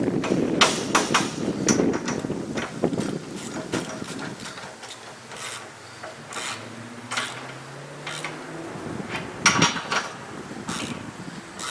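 Irregular metallic clanks and knocks from the steel hitch-mounted cargo carrier being handled, with a louder cluster about nine and a half seconds in.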